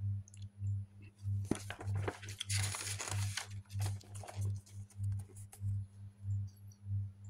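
Paper rustling as a page of a glossy booklet is turned, from about a second in to the middle. Under it a low hum swells and fades a little under twice a second.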